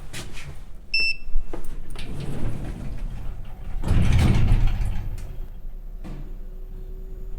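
Elevator: a short electronic beep about a second in, then the doors sliding shut with a loud rumbling swell around four seconds in, followed by the car's steady low hum as it starts to travel.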